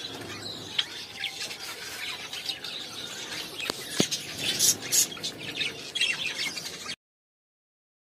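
A cage of finches, Java sparrows among them, chirping and calling in short, sharp notes. The sound cuts off abruptly about seven seconds in.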